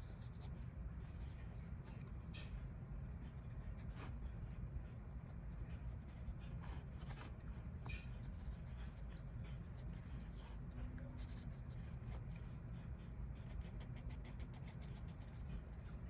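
Graphite pencil scratching on sketchbook paper in short, quick strokes as lines are sketched, over a steady low room hum.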